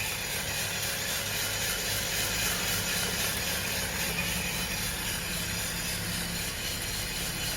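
Aillio Bullet R1 coffee roaster running steadily: the drum turning at full speed with coffee beans tumbling inside, over a steady fan whir and motor hum. The beans are in the drying phase of the roast, still short of turning yellow.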